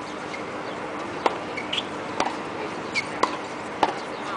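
Tennis balls struck by racket and bouncing on a hard court during a practice rally: sharp pops about once a second, with a few short high squeaks between them.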